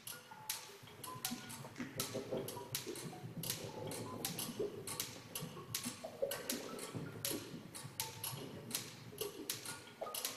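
Experimental improvised music made of irregular clicks and ticks, with short held tones and a busy, lower-pitched texture underneath.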